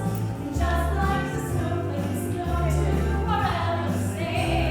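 Several singers performing a song over recorded backing music with a bass line.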